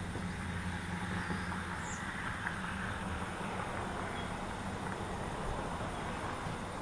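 Steady background noise with a low hum that weakens about a second in; no distinct sound events.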